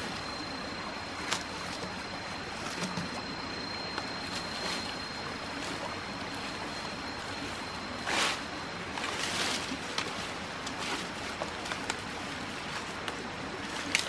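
Running stream water with scattered splashes and clicks, the splashes bunched in the second half. A thin, steady high-pitched tone sounds through the first half, then fades.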